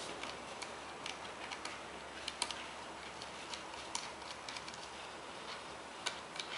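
Small screwdriver backing out the little screws that hold a laptop's LCD panel in its mounting brackets: faint, irregular small clicks and ticks.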